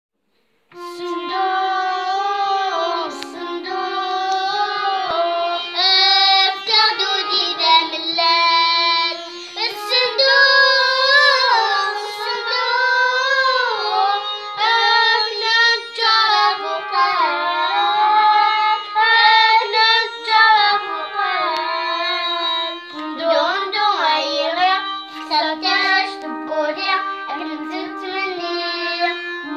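A young girl singing a winding, ornamented melody, accompanied by long held notes on an electronic keyboard.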